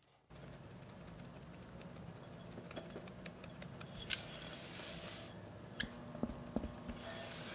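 Light rustling and small ticks as cake flour and matcha powder go into a glass bowl of batter. From about four seconds in, a spatula folds the powder into the batter, with a few sharp knocks and scrapes against the glass.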